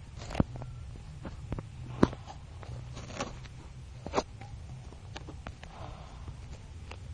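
A person snoring in their sleep: a low, uneven rumble, broken by several sharp clicks.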